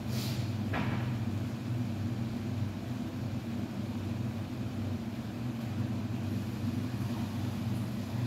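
Steady low hum of a running kitchen appliance, such as an extractor or cooktop fan, with two brief short noises about a second in.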